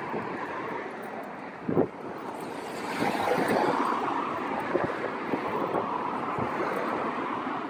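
Steady rush of road traffic going by, mixed with wind buffeting the microphone, swelling about three seconds in as a vehicle passes. A short knock just under two seconds in.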